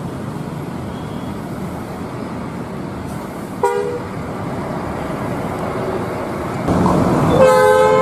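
Buses running past with a steady engine and traffic noise. A bus horn gives one short toot about three and a half seconds in. Near the end a louder, longer horn blast of two or more tones sounds together.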